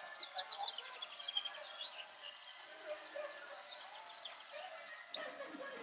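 Faint, high bird chirps and twitters, many quick short calls in the first couple of seconds that thin out afterwards.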